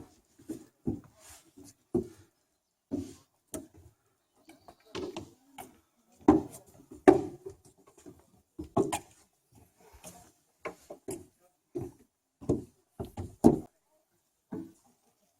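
Footsteps on a forest path, irregular, about one or two steps a second, stopping near the end.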